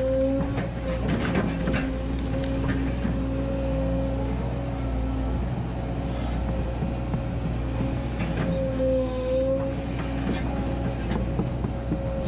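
Volvo 140 hydraulic excavator running, its engine held at a steady speed under a whining hydraulic pump tone that wavers slightly with load. A few knocks and scrapes of the bucket working soil come in the first few seconds.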